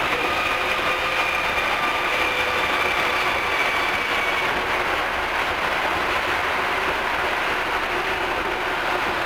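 Osaka Monorail 2000-series train running, heard from inside the car: a steady rumble of rubber tyres on the concrete track beam. Over it an electric traction-motor whine sinks slightly in pitch and fades out about halfway through.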